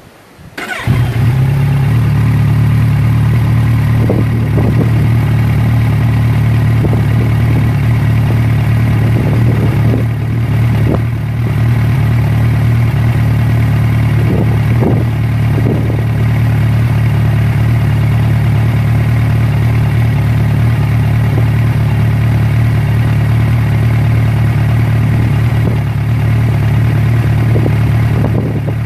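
An engine starts about a second in, then runs at a steady, unchanging speed with a strong low hum.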